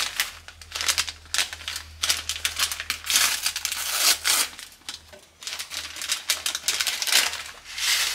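Irregular crinkling and crunching, dense and uneven, with brief quieter gaps about five seconds in, over a steady low hum.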